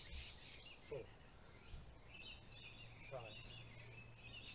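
Faint birds chirping and singing, with a low steady hum that comes in about halfway through.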